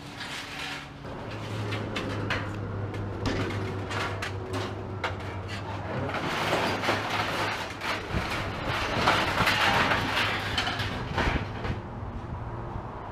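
Scrap aluminum clattering and banging as it is unloaded, with a steady low engine hum underneath for the first several seconds. The clatter is heaviest in a louder stretch in the second half.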